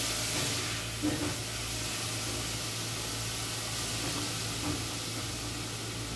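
Ground beef sizzling as it fries in butter over high heat in a stainless steel pot, stirred with a spoon, which knocks against the pot about a second in. The high heat is meant to sear the meat so that water does not collect.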